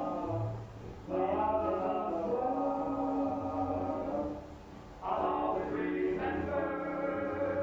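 An old song recording in which a group of voices sings long, held harmony notes, with a short pause about a second in and another a little past the middle.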